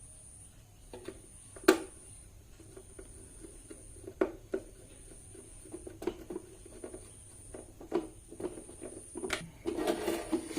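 Hands reassembling a UPS battery backup: scattered plastic clicks and knocks as parts and wires are fitted back into the case, the sharpest about a second and a half in, with busier handling near the end.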